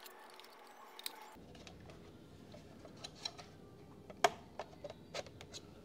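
Scattered plastic clicks and taps as an Orbit ShopperTrak people counter is pushed and turned onto its ceiling mounting plate, its clip being tricky to catch. The sharpest click comes about four seconds in.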